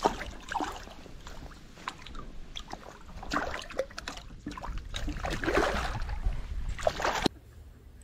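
A hooked Israeli carp thrashing and splashing at the surface of the water as it is hand-lined to the bank, in irregular bursts that grow busier midway. The sound cuts off abruptly near the end.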